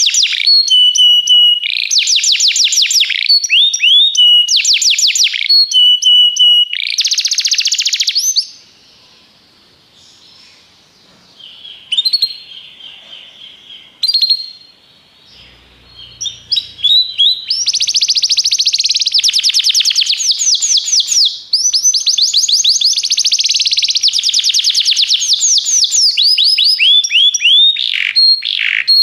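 Domestic canary singing in fast repeated trills and rolls. It falls quiet for a few seconds about a third of the way in, picks up again with softer phrases, then sings long loud trills through the second half.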